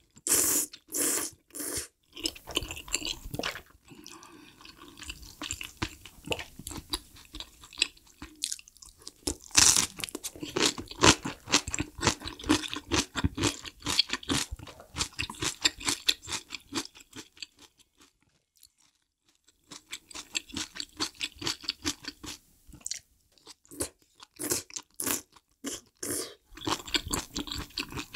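Close-miked eating of spicy dumpling hot pot: knife-cut noodles slurped in a few quick pulls, then steady wet chewing with small clicks and crunches. The chewing stops briefly about two-thirds through, then starts again with a few louder slurps near the end.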